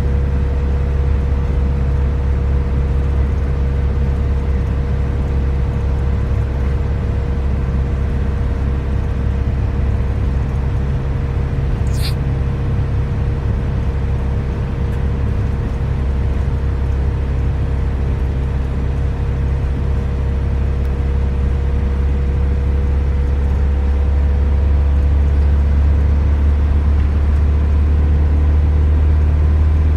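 Steady road noise inside a moving car's cabin: a low rumble of engine and tyres with a faint steady hum above it. A single sharp click comes about twelve seconds in, and the rumble grows a little louder near the end.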